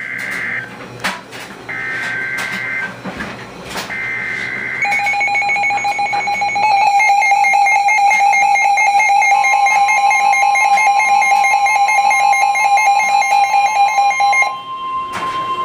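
Emergency Alert System tornado warning: three short bursts of SAME header data, a rapid warbling two-tone screech, then the EAS attention signal, a harsh steady dual tone lasting about ten seconds. Partway through, a second steady tone joins in and carries on after the attention signal stops.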